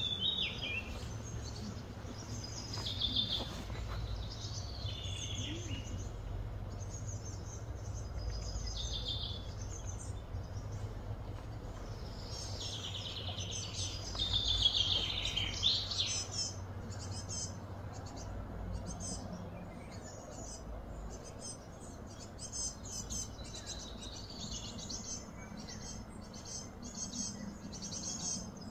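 Birds chirping and calling over a steady low hum, with a louder, denser flurry of calls about halfway through.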